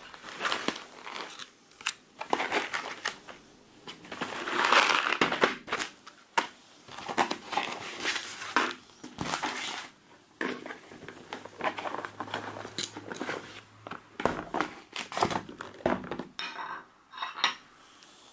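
Plastic food packaging crinkling and rustling as it is handled and opened, with scattered light clicks and knocks.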